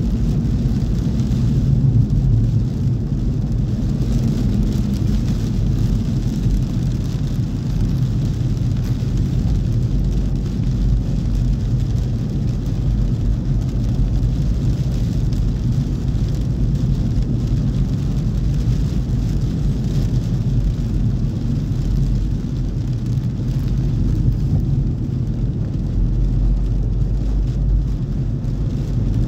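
Car driving on a wet road, heard from inside the cabin: a steady low rumble of engine and tyres, with a fainter hiss of tyres on wet asphalt.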